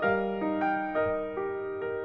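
Slow, gentle piano music: single notes and chords struck about every half second and left to ring.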